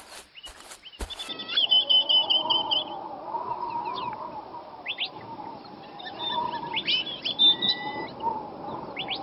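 A few footsteps about half a second apart in the first second, then birds chirping and tweeting, short quick high chirps over a steady lower background, as in a park ambience sound effect.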